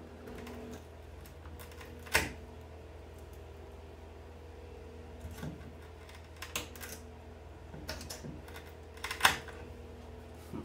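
End-cutting nippers gripping and working nails out of a wooden chair frame: scattered sharp clicks and snaps of metal on wood and nail, the loudest about two seconds in and again near the end. A steady low hum runs underneath.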